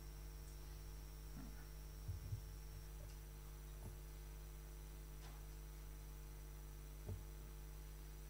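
Faint, steady electrical mains hum, with a few soft low knocks about two seconds in and once more near the end.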